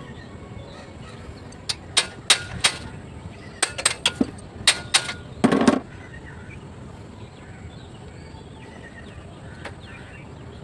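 A run of sharp clicks and knocks from tools working on a bicycle's rear wheel while the chain is being tightened, about a dozen in the first half, the last a longer scraping knock; then only a steady background.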